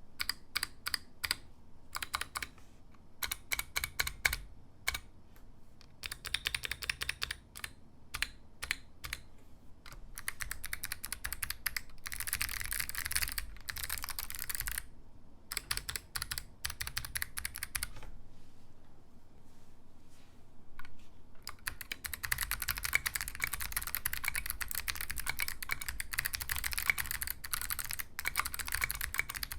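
Typing on a handwired 60% mechanical keyboard, with rapid key clicks. The presses come in short scattered runs at first, then turn into fast continuous typing, with a brief pause past the middle.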